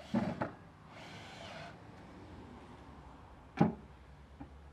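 Sharp knocks: a quick clatter of several near the start and a single loud knock about three and a half seconds in, with a brief hiss between them.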